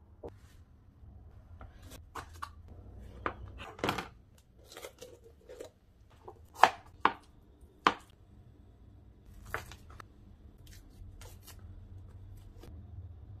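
Chef's knife cutting bell pepper and red onion on a plastic cutting board: irregular sharp knocks of the blade striking the board. The loudest few knocks come a little past the middle.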